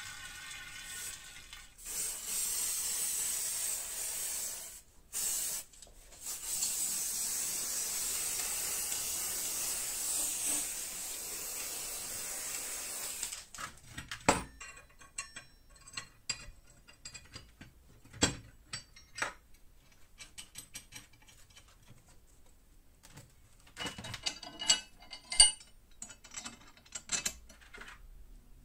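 A Coronet Herald wood lathe runs briefly, spinning an aerosol spray-paint can to mix it. Then the paint can hisses in two long sprays with a short burst between them. After that, painted steel parts clink and knock sharply as they are handled and set down on a steel table.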